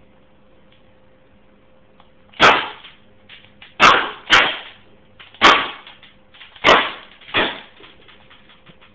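CO2-powered 6 mm plastic-BB pistol (airsoft) firing, six sharp cracks at uneven intervals over about five seconds.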